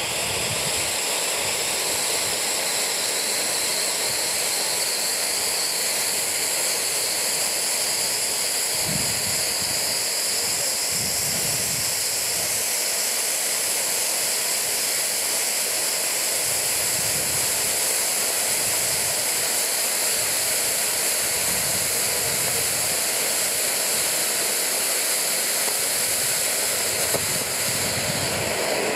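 Jorge Super Gold ground fountain firework (Vulkan) burning, a steady loud rushing hiss as it sprays gold sparks.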